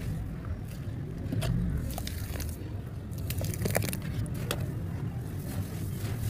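Hands crushing and crumbling dry, gritty grey dust and lumps, with crackling crunches that cluster in the middle, then squishing them into wet grey slurry.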